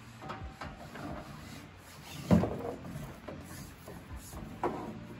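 Handling noises as rubber hydraulic hoses are pushed and fed through a gap under a tractor's floor step: rubbing and scattered knocks, with one louder thump a little over two seconds in.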